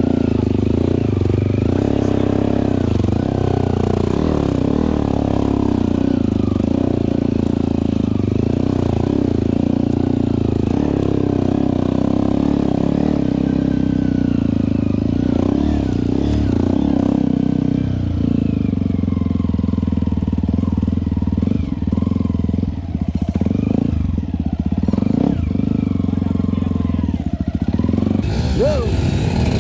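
Yamaha WR155R dirt bike's single-cylinder four-stroke engine running steadily as it climbs a rough trail. In the last third the note turns uneven, coming and going.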